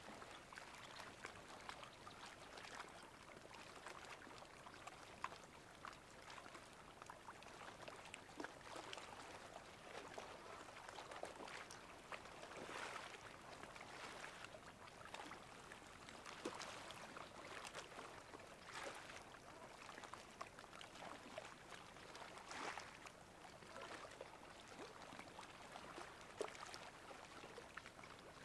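Faint water at high tide, lapping and trickling, with small splashes and gentle swells every few seconds.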